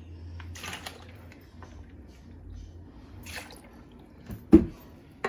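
Orange juice poured from a plastic bottle into a plastic measuring cup and over ice, in short splashing pours. One sharp knock near the end is the loudest sound.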